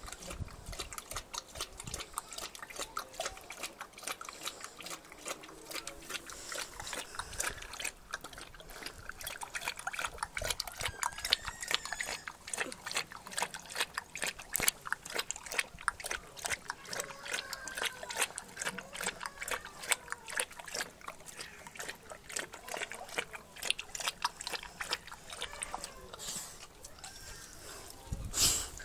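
Rottweiler lapping water from a plastic paddling pool: a steady run of quick wet laps and slurps. A brief louder sound comes near the end as it lifts its head from the water.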